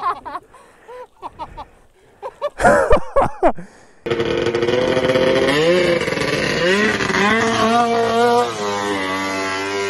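Short shouts in the first few seconds, then a snowmobile engine starts abruptly. It revs up and down, then settles into a steady drone.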